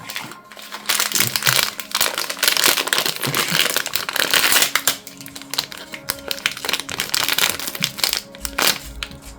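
Crinkling and rustling of plastic packaging as a blind-box figure is unwrapped and handled, densest in the first half and sparser after about five seconds.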